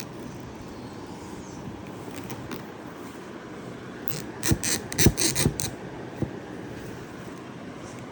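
A puzzle and its packaging being handled: a quick run of sharp clicks and rattles about four seconds in, and one more click a little later, over a steady low hum.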